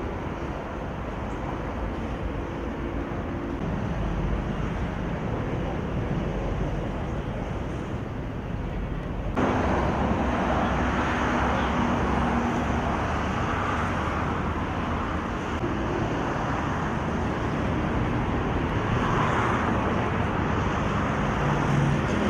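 Steady road traffic noise, jumping abruptly louder about nine seconds in.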